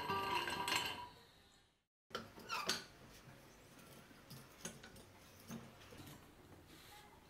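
Acoustic guitar music fades out, then an old rusty cast-iron charcoal iron is handled: a few sharp metallic clinks and knocks from the iron and its hinged lid, then lighter scattered taps.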